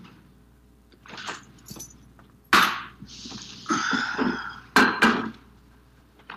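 Film-soundtrack sound effects: a few light clinks and knocks of dishes and objects on a table, with a sharp knock about two and a half seconds in and two quick clicks near the end, between soft rustling.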